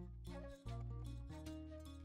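Instrumental background music, a quick even run of notes over held bass notes.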